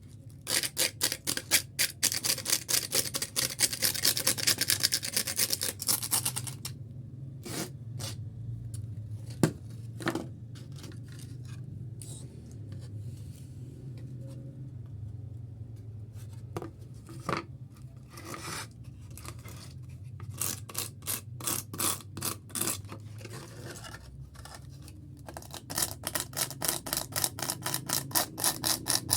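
Hand work on fiberglass: runs of rapid scraping or snipping strokes, about four a second, with a stretch of scattered single clicks between them. A steady low hum runs underneath.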